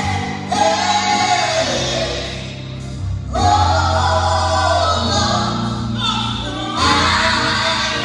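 Live gospel music: a vocal group singing in harmony, backed by a band with a steady bass line. The sung phrases come in swells, with a short break about three seconds in.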